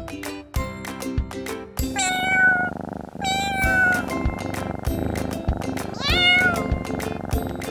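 A domestic cat meowing three times, each call a pitched cry that bends in pitch, the last rising sharply at its start. A steady-beat music track plays underneath throughout.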